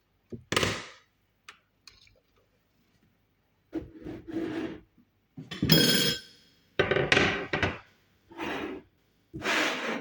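A series of about six scraping, rubbing strokes, each under a second, with short gaps between them.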